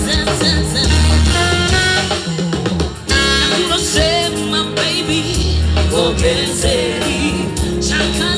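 Live band music with a woman singing lead over bass, drums and electric guitar, with a brief drop about three seconds in before the band comes straight back in.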